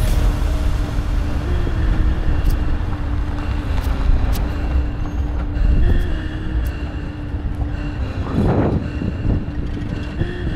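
A motor vehicle running with a steady low rumble and a held tone that shifts slightly in pitch now and then.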